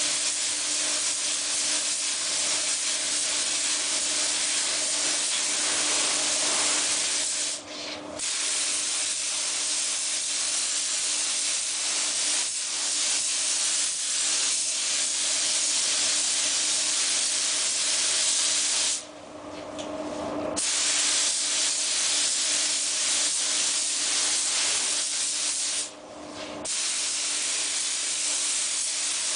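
Paint spray gun hissing in long continuous passes while a car body gets its final coat, cut off for a moment three times as the trigger is released. A steady low hum runs underneath throughout.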